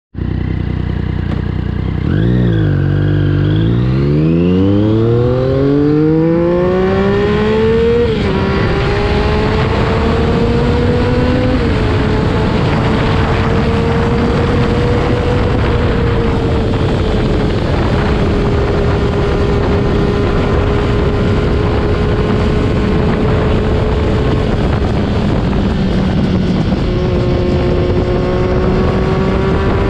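Triumph Daytona 675R's inline-three engine through a Yoshimura Alpha full exhaust, pulling away and revving up hard, with quick upshifts about eight and twelve seconds in. It then holds fairly steady revs, drops back and pulls up again near the end. Heavy wind buffets the camera microphone once it is up to speed.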